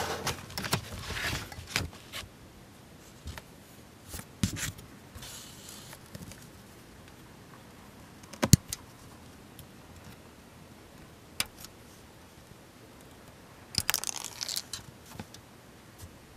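Plastic model kit parts and tools being handled on a work surface: scattered sharp clicks and taps, with short bursts of rustling and crinkling near the start and again near the end.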